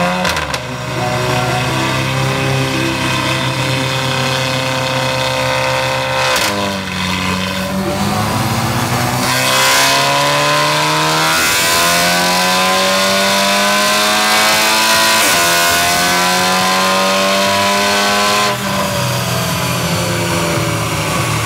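Volkswagen Golf R (Mk7) 2.0-litre turbocharged four-cylinder, breathing through a de-catted ARMYTRIX turbo-back valved exhaust, running under load on a chassis dyno. The note holds fairly steady, dips briefly about six seconds in, then climbs slowly in pitch and loudness for about ten seconds in a dyno pull before dropping off near the end.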